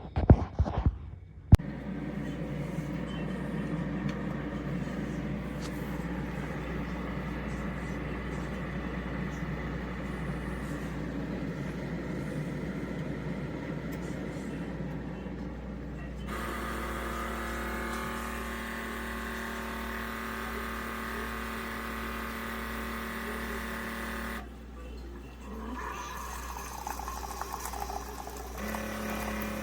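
Keurig K-Compact single-serve coffee maker running with a steady mechanical hum, after a few knocks at the start. About halfway through the hum changes to a higher, more tonal drone, drops out briefly near the end, then comes back.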